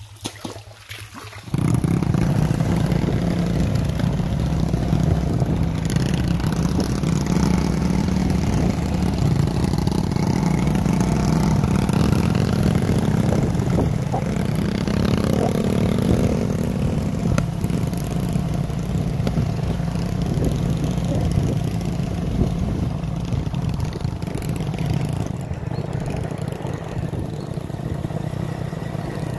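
Small motorcycle engines running steadily while riding, heard from on a moving motorcycle. The sound cuts in suddenly about a second and a half in.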